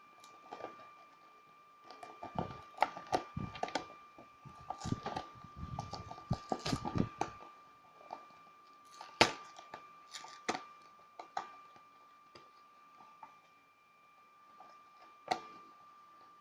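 Hands opening a headphone retail box: clicks, taps and rustling of the packaging, busiest in the first half, followed by a few single sharp clicks. A steady faint high whine runs underneath.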